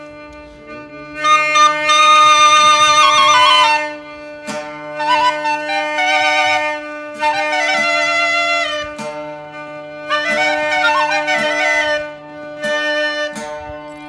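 Background music: a flute-like woodwind melody, ornamented and played in phrases of a few seconds, over a steady unbroken drone with light taps.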